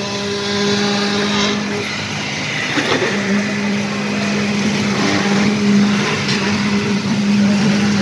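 Steady hum of construction machinery, one pitched drone that breaks off briefly about two seconds in and then resumes, with a few short knocks over it.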